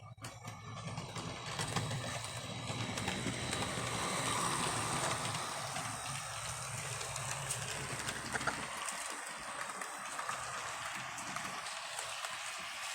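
HO scale model train running on the track: a low motor hum with the wheels rattling and clicking over the rails. The hum fades about nine seconds in while the rail noise goes on.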